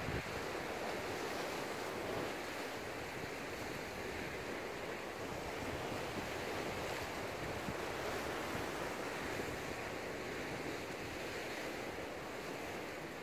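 Choppy sea surf washing steadily against a rocky shore, a continuous rushing wash with no distinct breaks.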